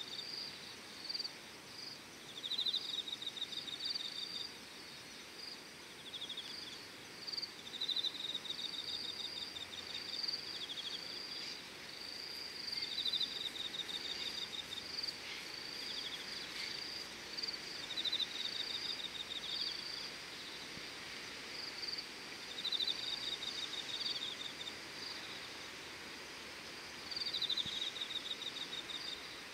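Insects singing at dusk. One gives pulsed trills about a second long every few seconds, and another keeps up short, slightly higher chirps, over a steady background hiss.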